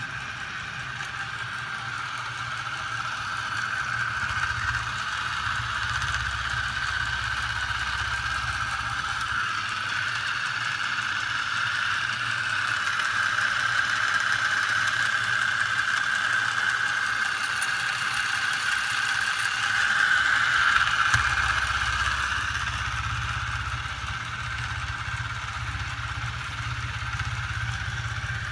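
Homemade magnet crankshaft machine with a heavy flywheel and swinging magnet arms running steadily, driven by a small 12 V electric motor: a steady whine over a low hum. It grows somewhat louder about three-quarters of the way through, then eases.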